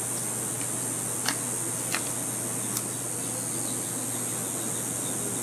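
Steady early-morning outdoor ambience: a continuous high-pitched hiss with a low steady hum beneath it and a few faint ticks.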